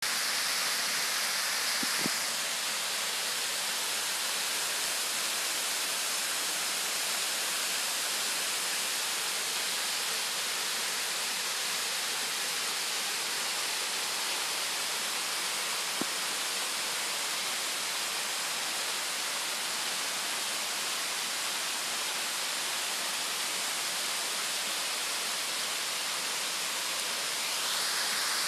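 Waterfall pouring down steep rock ledges: a steady rushing hiss that does not change, with two faint clicks, one near the start and one about halfway through.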